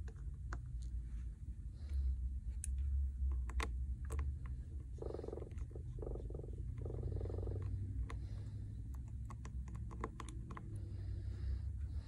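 Scattered small clicks and taps of repair tools and phone parts being handled during a smartphone teardown, over a steady low handling rumble.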